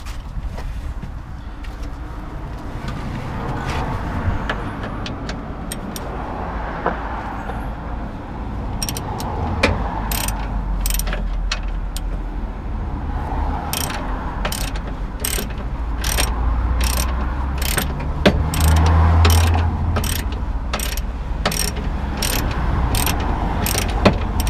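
Hand ratchet and socket tightening a bolt on a VW Golf Mk4 lower suspension arm, the ratchet's pawl clicking on each back-stroke. The clicks are sparse at first and come in a steady run from about a third of the way in.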